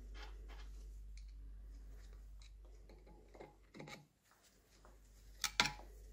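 Light clicks and knocks of parts and tools being handled during milling-machine gearbox assembly, with a sharper knock about five and a half seconds in, over a steady low hum.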